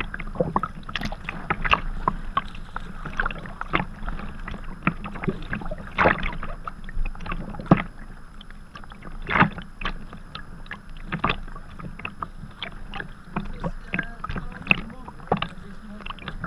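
Sea kayak being paddled: water splashes and slaps irregularly against the hull close to the deck-mounted microphone as the paddle blades dip, a few splashes louder than the rest, over a low wind rumble on the microphone.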